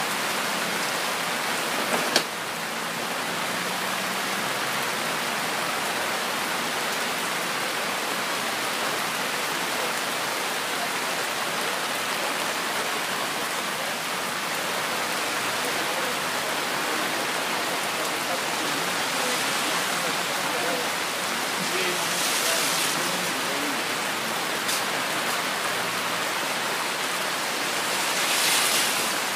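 Steady rain falling, an even hiss, with a sharp knock about two seconds in.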